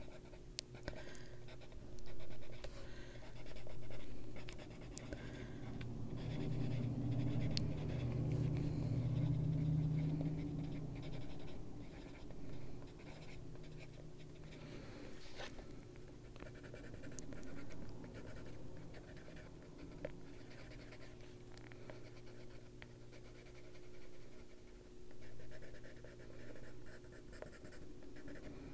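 Coloured pencil scratching on paper in short, repeated shading strokes, darkening small areas of a drawing, over a faint steady hum.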